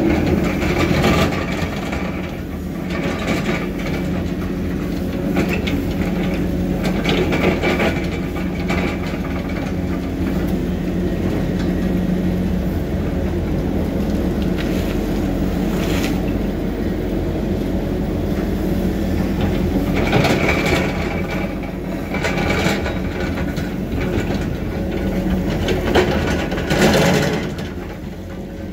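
Heavy construction machinery running steadily at a constant engine note, with repeated sharp metallic clanks and knocks throughout.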